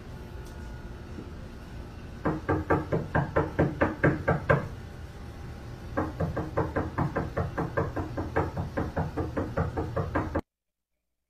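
Rapid knocking on a door, about five knocks a second, in two runs with a short pause between them; it cuts off suddenly near the end.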